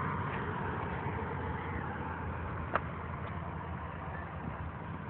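A steady, low engine drone, with one sharp click a little past halfway.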